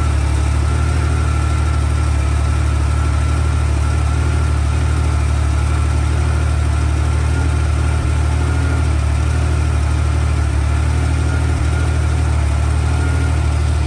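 Porsche 930's air-cooled, turbocharged flat-six idling steadily, heard at the open engine bay, with no revving.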